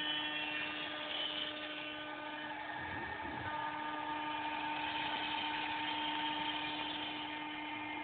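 Large CNC router running, milling a plastic block: a steady spindle whine made of several held tones over an even machining noise, with a faint low swell about three seconds in.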